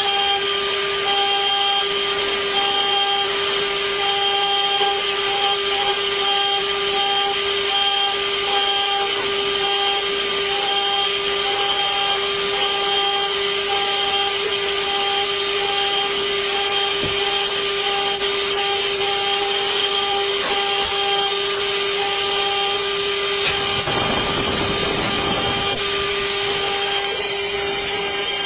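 CNC engraving machine's spindle running at a steady high speed while the cutter engraves letters into a metal disc: a steady whine with cutting noise, and a higher tone that comes and goes in short pulses about once a second. Near the end a rougher low rushing noise joins for a few seconds.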